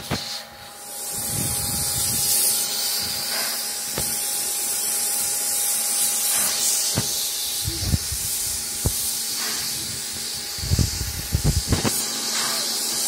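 Steam locomotive 3801, a streamlined C38-class 4-6-2, standing with steam hissing steadily from the top of its boiler. Several short, low thumps come and go through it, with a cluster near the end.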